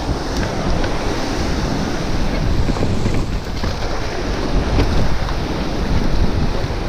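Steady wind rush on the microphone and tyre noise from a mountain bike rolling down a dirt forest trail, with a few faint knocks.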